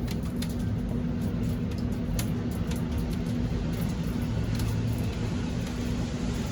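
Steady rain shower with scattered drops tapping close by, over a low steady hum.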